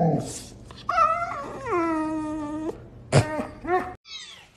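A bull terrier puppy growls briefly, then gives a long whining howl that drops in pitch and holds for about a second, followed by a few short yips. Near the end come high, falling kitten mews.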